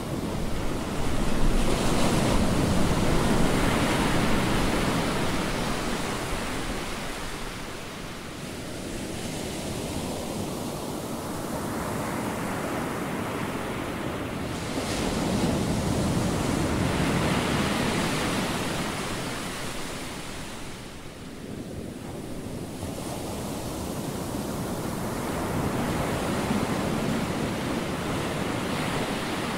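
Atlantic ocean surf breaking on the shore, a continuous rushing wash that swells and ebbs as the waves come in. The loudest surges are about two seconds in and again around fifteen to eighteen seconds, with a lull a little after twenty seconds.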